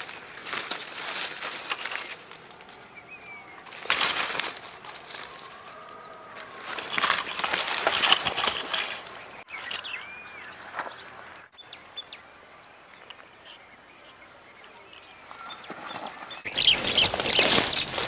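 Leaves and branches rustling in several bursts as someone pushes through undergrowth, with short bird chirps in the quieter stretches between.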